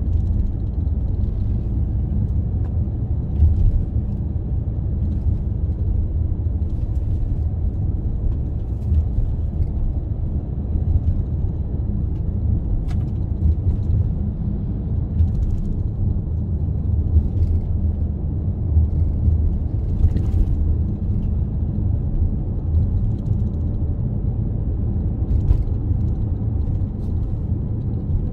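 Car driving steadily on a highway: a constant low rumble of engine and road noise, with a few faint clicks and knocks scattered through it.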